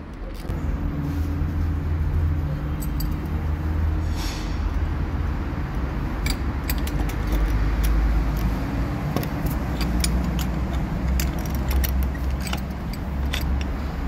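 A steady low mechanical hum, with scattered light metallic clinks and clicks from about six seconds in, as steel hand tools and a piston compressor tool are handled on a brake caliper.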